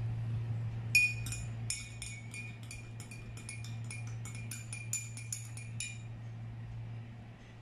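Metal spoon stirring in a glass tumbler, clinking against the glass in a quick run of ringing taps, about four a second, starting about a second in and stopping about six seconds in. A steady low hum lies underneath.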